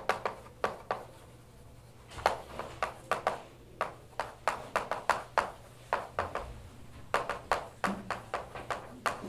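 Chalk on a blackboard as a line is written: an irregular run of sharp taps and short strokes, several a second, with brief pauses between words.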